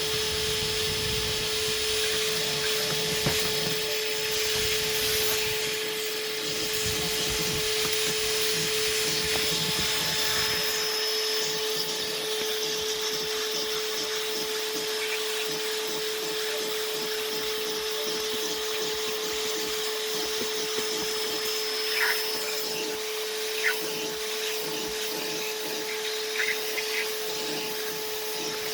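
Vacuum cleaner running steadily with a constant whine, its low rumble dropping away about a third of the way through, with a few short clicks near the end.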